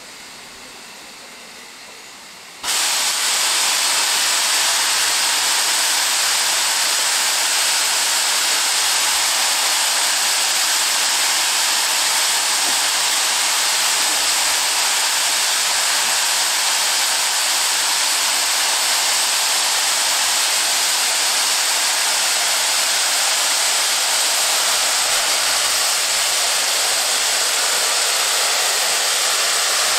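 Steam locomotive blowing off steam, a loud steady hiss that starts suddenly a few seconds in and keeps on without a break, typical of the safety valves lifting at full boiler pressure.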